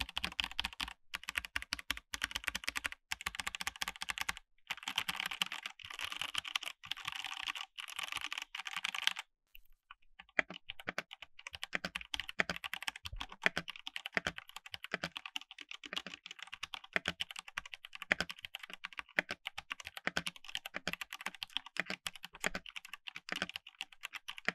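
Typing test on a Dareu EK871 mechanical keyboard with stock linear red D-switches in a hollow case with no foam: fast, continuous key clacks, with a pause of about a second some nine seconds in.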